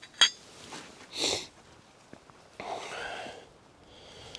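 A person sniffing and breathing: a short sniff about a second in and a longer breath out near three seconds in, with a small click at the start and a few faint ticks.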